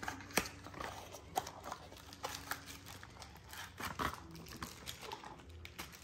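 Paper envelope and small clear plastic bag of an espresso machine cleaning kit being handled and opened: faint rustling and crinkling with scattered small clicks.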